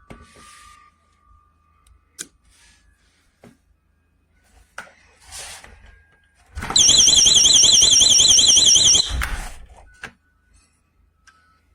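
GE Personal Security window and door alarm sounding its siren: a loud, high-pitched shriek that warbles rapidly up and down, about nine times a second, for about two and a half seconds, then cuts off suddenly. A few short clicks and rustling hisses come before it.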